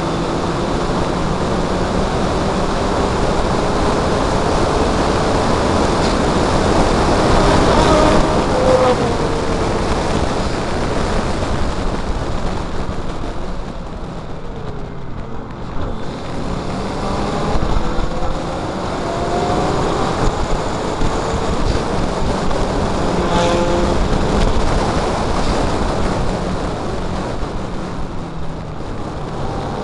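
Mazda MX5 race car's four-cylinder engine at racing speed, revving up and down through the gears, heard under heavy wind rush on the microphone. The engine note drops away for about two seconds midway, then climbs again.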